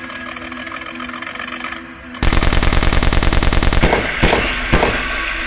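A rapid burst of machine-gun fire, a dubbed gunfire sound effect, starts suddenly a little over two seconds in and runs for under two seconds. Two single shots follow about half a second apart.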